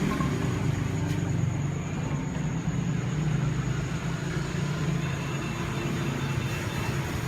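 Steady low mechanical hum with a faint high whine above it, and a light click about a second in.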